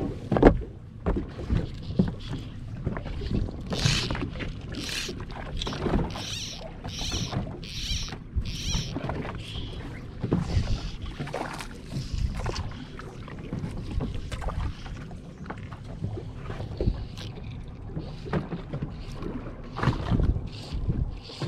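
Water sloshing and splashing with scattered knocks and clatter aboard a small fishing boat at sea. About four to nine seconds in there is a quick run of short hissy splashes, roughly two a second.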